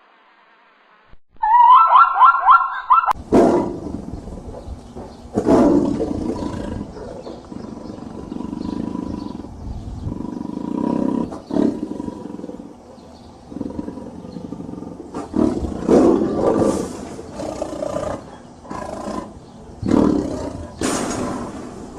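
A large animal roaring and growling repeatedly, in rough, noisy roars with several loud onsets. A short high whining call comes just before the first roar.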